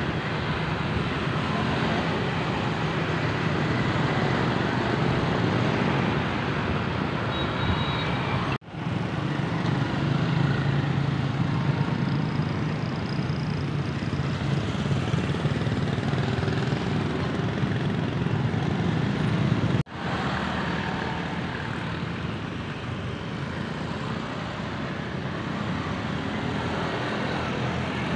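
Street traffic of motorbikes and scooters passing by, a steady engine and road noise with no single standout event. The sound drops out for an instant twice, about a third and about two-thirds of the way through.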